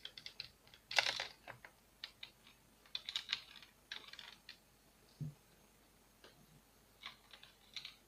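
Irregular small clicks and short scrapes of a screwdriver working the screws that hold the cooling fan of an Acer Aspire 5520G laptop. The loudest is about a second in, with further clusters of clicks later.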